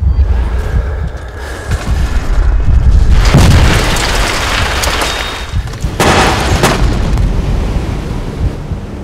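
Cinematic boom and explosion effects: a deep rumble underneath, with a large blast about three seconds in that dies away over a couple of seconds, and a second, shorter blast about six seconds in.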